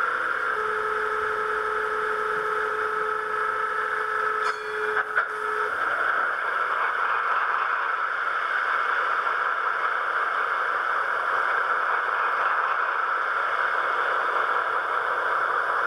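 Dapol Class 52 Western model locomotive's factory-fitted sound decoder playing its twin-engined diesel-hydraulic start-up through the model's small onboard speaker. Steady tones run for about five seconds, a few clicks follow, and then a steady, muted engine idle settles in.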